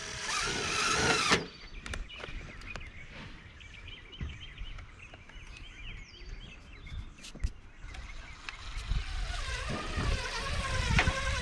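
Outdoor ambience: a low rumble of wind on the microphone, with a loud rushing noise for about the first second and a half. After it come light birdsong chirps and scattered sharp taps and clicks of work, one louder click in the middle. The rushing noise builds again near the end.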